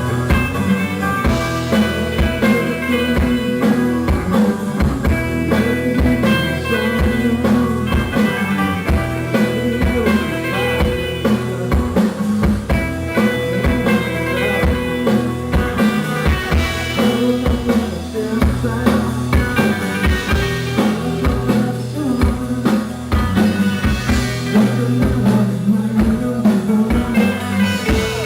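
Rock band playing live: drum kit keeping a steady beat under guitars, with a bluesy, psychedelic feel.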